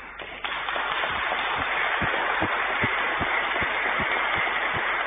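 Congregation applauding: a dense, steady spread of many hands clapping that starts suddenly about half a second in.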